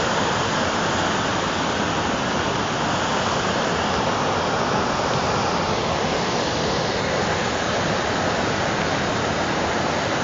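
Muddy floodwater rushing steadily across a washed-out road in a flash flood.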